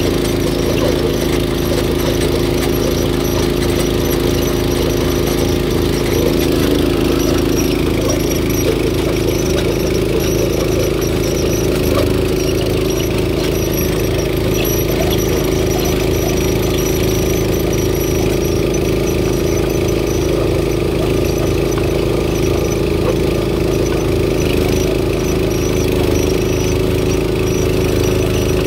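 Barreto 912 walk-behind trencher running steadily under load, its engine holding an even speed while the digging chain cuts a trench through rocky soil.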